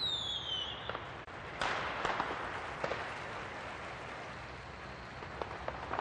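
A few sharp cracks over a steady outdoor background noise, the loudest about a second and a half in, with a short falling whistle-like tone at the very start.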